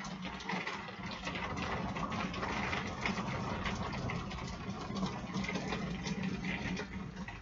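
Rolling thunder rumbling for several seconds after a lightning strike, swelling about a second in and dying away near the end.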